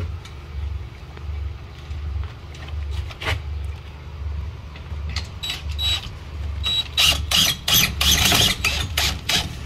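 DeWalt cordless drill driving a door-frame screw in short trigger bursts, starting about halfway in and coming thick and loud near the end. A steady low hum runs underneath.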